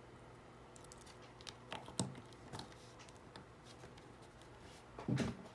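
Light plastic clicks and taps as a custom minifigure is handled and pressed onto the studs of a plastic baseplate, the sharpest click about two seconds in. A duller knock comes near the end.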